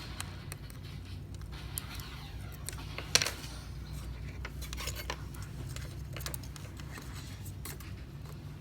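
Small clicks and scrapes of a pry tool working under the edge of an iPhone XR's screen, with one sharper click about three seconds in, over a steady low hum.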